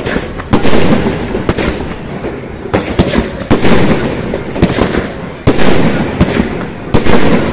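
Fireworks display going off: an irregular series of about a dozen sharp bangs, some in quick pairs, each trailing a short echo.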